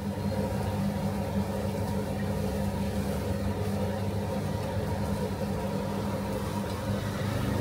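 A steady low mechanical hum, like a motor or engine running at constant speed.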